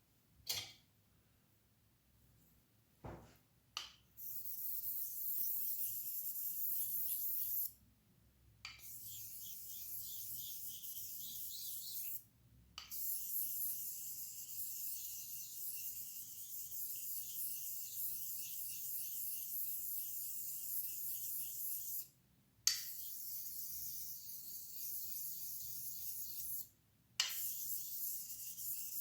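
A razor being honed on a Nakayama Karasu awasedo, an extra-fine natural Japanese finishing whetstone. The steel scrapes in a steady high hiss of rapid back-and-forth strokes, broken by four short pauses, after a few light clicks in the first seconds.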